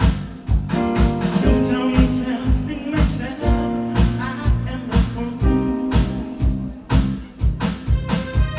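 A song playing, with a steady drum beat under held instrumental chords.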